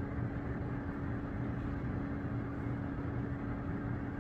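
Steady mechanical hum with one constant low tone over an even background noise, unchanging throughout.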